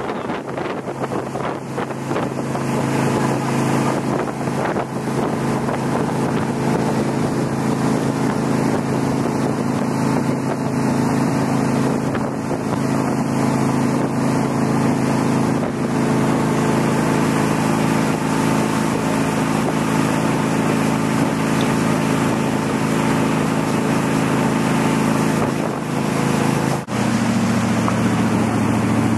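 Riverboat's engine running steadily under way, a constant hum under the rush of water and wind on the microphone. Near the end the sound briefly dips and the engine comes back at a different, lower tone.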